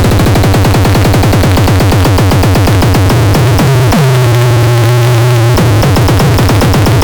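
Electronic noise box synthesizer playing a rapid, even pulsing pattern over a low drone. About three and a half seconds in, a tone glides down and holds for a moment, then breaks off as the pulsing carries on.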